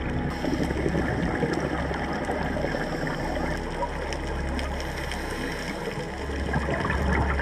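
Underwater water noise picked up by a diving camera: a steady gurgling, rushing wash over a low rumble.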